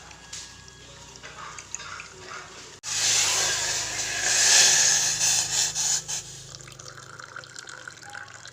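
Water being poured, starting abruptly about three seconds in and running for about three seconds before dying down to a faint trickle.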